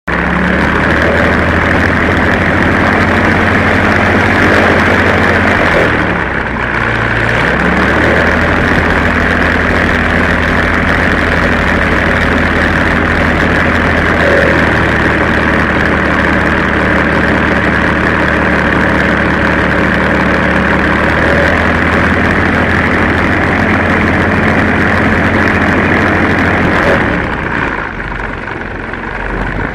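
MWfly B25L 150 hp aero engine and propeller running steadily at taxi power, heard close up from the airframe. The engine note dips and climbs back up about six to eight seconds in, and drops lower near the end.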